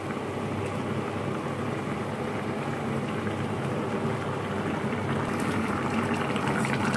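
Curry boiling hard in a frying pan, a steady bubbling: the gravy is at the full boil at which the fish go in.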